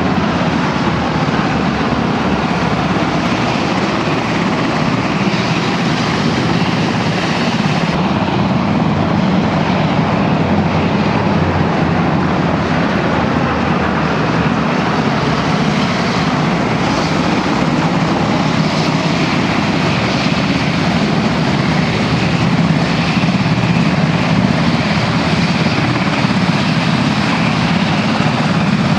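Turboprop engines of a formation of C-130H Hercules transports flying past low, a steady drone that holds through the whole stretch.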